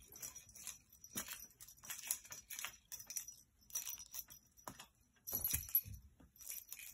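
Faint, scattered light clicks and jingling from a cat's fishing-rod wand toy being moved about.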